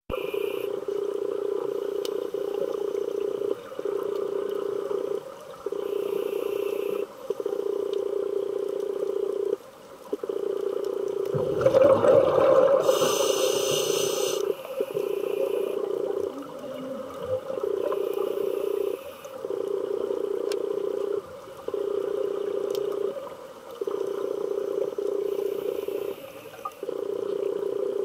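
Underwater sound picked up by a diver's camera: a steady droning hum that drops out briefly every second or two. Near the middle comes a louder rush of scuba regulator breathing, exhaled bubbles then a hissing breath.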